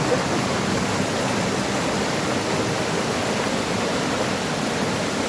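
Waterfall and stream water rushing in a steady, unbroken noise.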